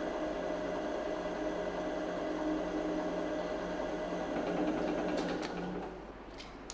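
Hydraulic compression testing machine running under load with a steady hum, which drops off about six seconds in, followed by a few sharp clicks near the end.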